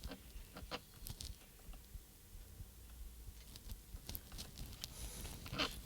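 Faint, scattered clicks and light rustles of hands working the small plastic parts and wire connectors inside an opened radio-control transmitter.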